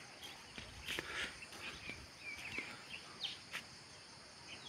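Small birds chirping in short scattered calls over a steady high insect drone, with a couple of faint clicks.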